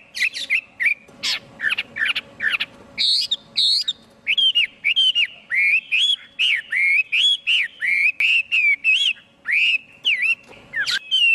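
Chinese hwamei singing a varied run of clear whistled phrases. It opens with quick, sharp notes, then goes into a long series of repeated slurred whistles, about two or three a second.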